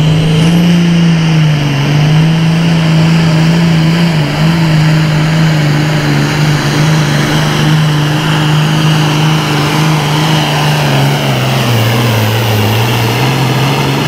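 International super farm pulling tractor's diesel engine running flat out under load while dragging a pulling sled, a loud steady drone. Its pitch sags about eleven seconds in as the engine lugs down under the sled's growing weight, then partly recovers.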